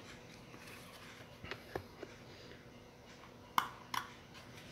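Light plastic clicks and taps of a Totolink N300RT wireless router's casing being turned over in the hands: a couple of faint ones about a second and a half in, then two sharper clicks about half a second apart near the end.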